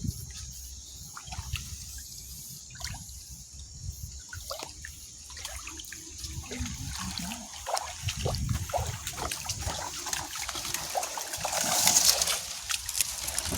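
Shallow water being disturbed: trickling and sloshing with scattered small splashes, and a louder splash about twelve seconds in.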